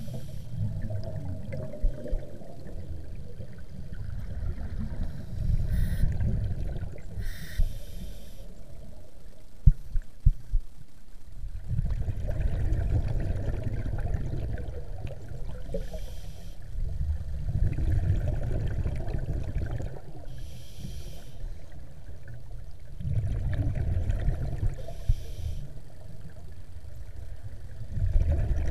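Scuba diver breathing underwater through a regulator: a short hiss on each inhale, then a low rumbling burst of exhaled bubbles, repeating in a slow rhythm every five seconds or so. A few sharp knocks come about a third of the way in.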